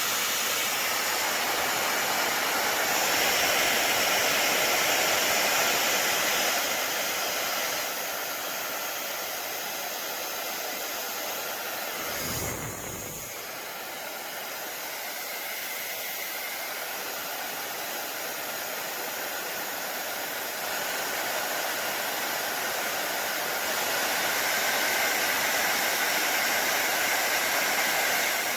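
YAPOY high-speed hair dryer running, a steady rushing of air with a faint motor whine. It gets quieter about eight seconds in, gives a brief low rumble about twelve seconds in, and gets louder again near the end.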